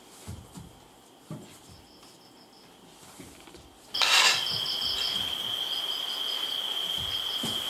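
A few faint thumps, then about four seconds in a sudden loud burst gives way to crickets: a steady high trill with quick pulsed chirps repeating over it.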